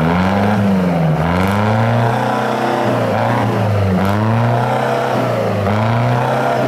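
3-litre diesel truck engine revved repeatedly through twin vertical exhaust stacks, its pitch rising and falling about five times in quick blips.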